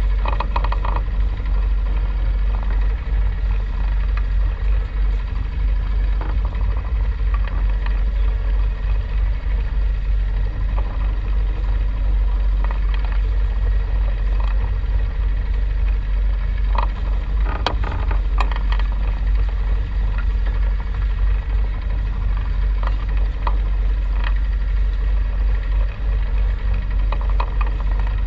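Steady low rumble and rushing noise of a sailboat under way on open sea, with a few faint clicks about two-thirds of the way through.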